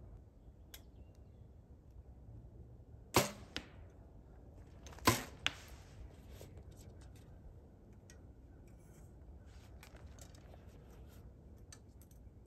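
Two compound bow shots about two seconds apart. Each is a sharp snap of the released string, followed a third of a second or so later by a fainter knock of the arrow striking the target.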